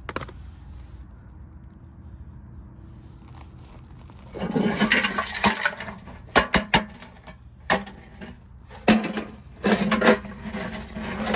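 Nut shells from a mouse nest pouring and rattling out of a rusty steel air cleaner housing as it is tipped over gravel, followed by several sharp knocks as the housing is jostled and shaken out.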